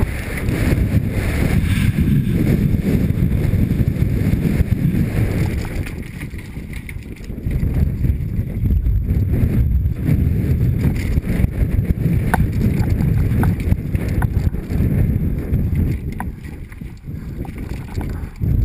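Mountain bike descending fast on a loose, rocky dirt trail: wind buffets the helmet-mounted camera's microphone over the crunch of tyres on gravel and the rattle of the bike, with a few sharp ticks partway through.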